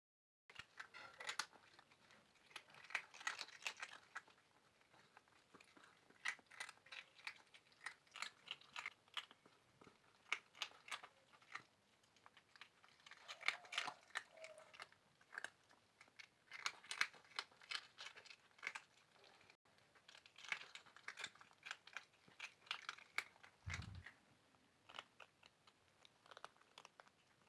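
Cats crunching and chewing dry sev, the crisp fried gram-flour noodle snack: quick, irregular clusters of small crisp crunches. A brief low bump comes near the end.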